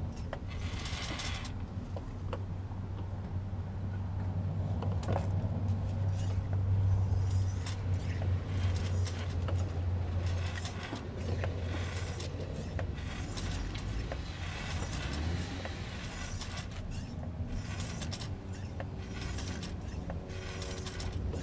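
Hand-operated fluid transfer pump being worked to fill a Haldex AWD coupling with fluid, its plastic mechanism giving small irregular clicks and knocks. Under it runs a steady low hum, louder in the first half.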